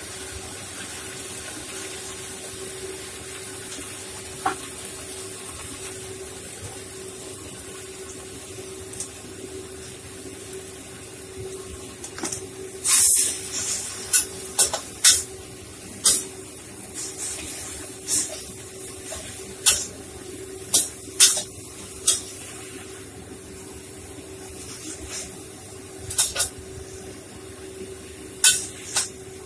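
Spinach stir-frying in a metal wok, sizzling with a steady hiss. From about twelve seconds in, a metal spatula knocks and scrapes against the wok in a series of sharp clanks, again twice near the end.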